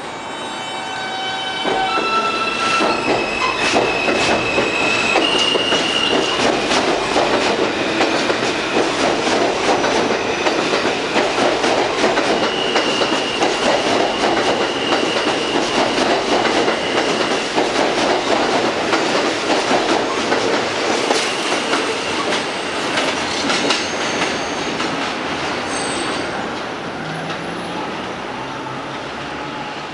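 R160A subway train with Alstom ONIX propulsion pulling out of a station: the traction motors whine upward in distinct steps as it starts to accelerate, then the cars clatter over the rail joints with a high wheel squeal coming and going. The noise eases off near the end.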